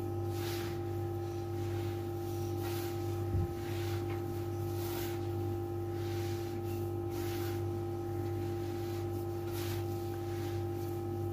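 Hands kneading and rubbing a crumbly sellou dough of roasted flour and ground nuts in a clay bowl, a soft rustling scrape with each stroke, about once a second, over a steady background hum. There is one dull thump about three seconds in.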